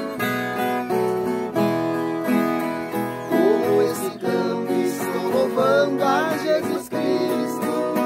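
Two Brazilian violas caipiras (ten-string folk guitars) plucked together in a duet, with men's voices singing along from about three seconds in.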